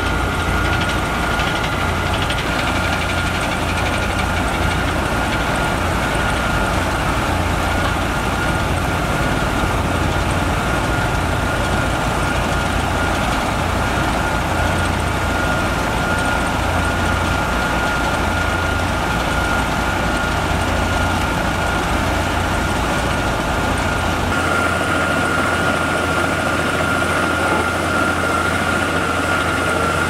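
Heavy diesel road-paving machinery running steadily, with a constant high whine over the engine noise. The deepest part of the rumble drops away about 24 seconds in.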